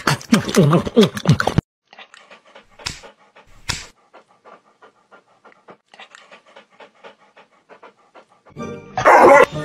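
A German Shepherd panting in quick, quiet, even breaths, about four a second. Before it, a loud voice-like sound breaks off just over a second in, and a loud burst comes near the end.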